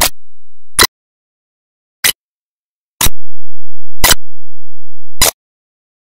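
Loud, sharp ticks, about one a second, in the manner of a ticking clock.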